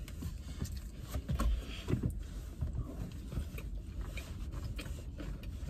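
Quiet eating sounds in a car cabin: chewing, with small clicks and rustles of chopsticks and a plastic sushi tray, over a low steady rumble.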